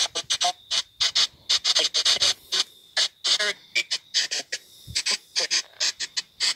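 Spirit box app on a phone sweeping rapidly through radio-like snippets: choppy bursts of static and broken voice fragments, about four a second, separated by short gaps.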